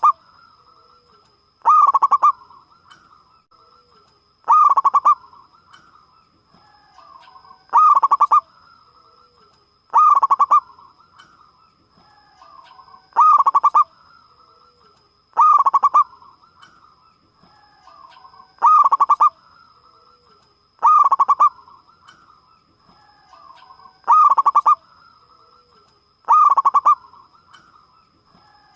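Zebra dove (local perkutut) cooing: a loud burst of rapid pulsed coo notes repeats about every two and a half seconds, with softer trilling between. A faint steady high tone runs underneath.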